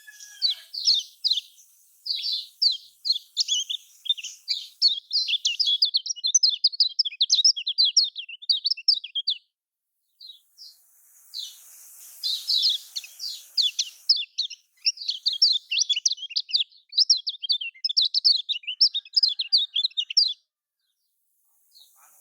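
Kecial kuning songbird singing a fast, dense chattering song of rapid high notes in two long bouts, separated by a short pause about halfway through; the song stops shortly before the end.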